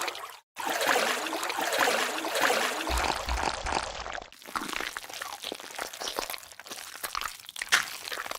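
Water trickling and splashing, with brief breaks where the sound cuts off abruptly.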